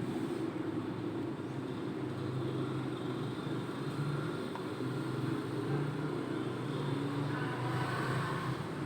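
A steady low hum with some rumble, with a deeper note that swells and fades every second or two.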